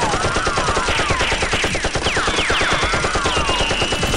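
Rapid automatic gunfire sound effects: a dense, continuous rattle of shots, with several whistles falling in pitch laid over it.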